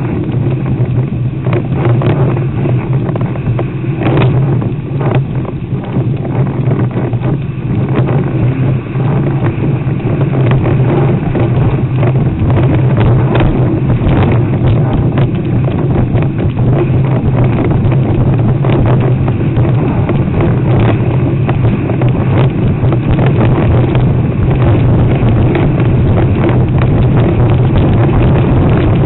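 Loud, steady wind noise buffeting the board-mounted camera's microphone, mixed with water rushing past a board as it sails across the water.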